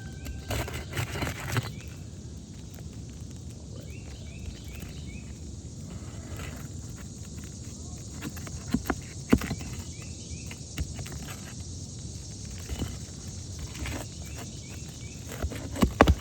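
Asphalt roof shingles being handled and lifted to check their seals: scattered scrapes and rustles with a few sharp clicks, over steady outdoor background noise. Faint short chirps repeat a few times.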